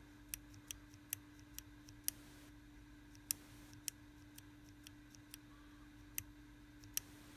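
A small push button on a DIY video receiver clicked again and again to step through channels: about a dozen sharp clicks, several a second at first, then more spaced out, over a faint steady hum.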